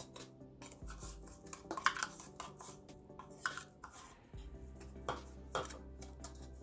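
Metal spoon clinking and scraping against a metal cake pan while spreading brown sugar over melted butter. There are a few separate clinks, the loudest about two seconds in and more around three and a half, five and five and a half seconds, over quiet background music.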